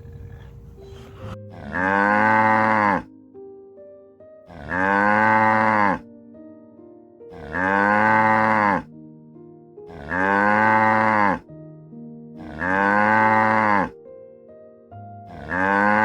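A cow mooing, the same long moo repeated six times at about three-second intervals, each call rising then falling in pitch. Soft background music with held notes plays between the moos.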